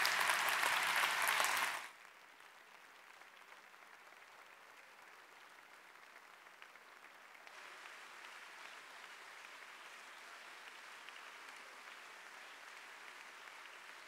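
Audience applauding. The clapping is loud at first, drops suddenly to a much fainter, more distant sound about two seconds in, then grows somewhat louder about halfway through.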